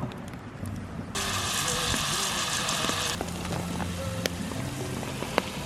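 Food sizzling in a cast iron pan over a campfire for about two seconds, starting and stopping abruptly, followed by a few sharp pops from the fire.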